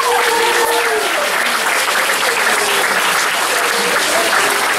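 Audience applauding steadily, with a few voices cheering in the first second or so.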